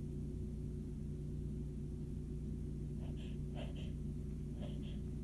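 Steady low electrical hum throughout. From about three seconds in, a few short, faint gasping breaths come in quick succession as another sneeze builds.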